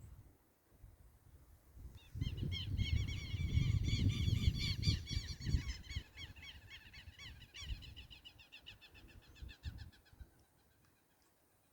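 A flock of birds calling together in rapid, repeated, overlapping notes. The calls build about two seconds in, peak, and fade away before the end. A low rumble of wind on the microphone runs beneath them.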